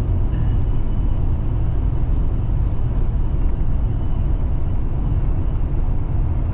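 Steady low road and engine rumble heard inside a truck's cab at highway speed.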